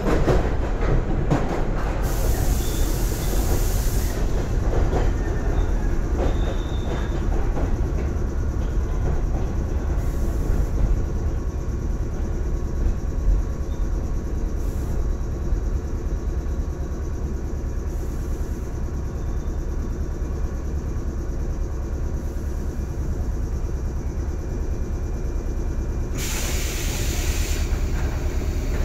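JR 113 series electric train heard from inside the carriage: a steady running rumble with the clickety-clack of rail joints in the first couple of seconds, easing off as the train slows to a stop at a station. Two bursts of air hiss come through, about two seconds in and again near the end as it comes to a halt.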